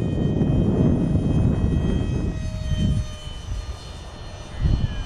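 Radio-controlled model F-16 jet flying overhead, with the steady high whine of its engine. A low rumble under it drops away for a second or so past the middle, then returns.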